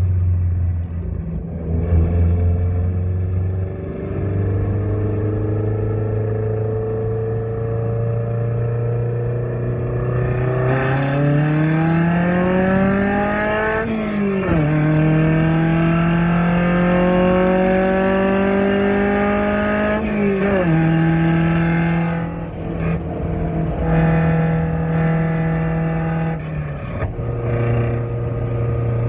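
Honda four-cylinder engine breathing through a PLM V2 megaphone header and open downpipe, heard from inside the cabin as the car does a full-throttle pull. The revs climb, fall sharply at upshifts about halfway through and again a few seconds later, then hold steady and step down once more near the end.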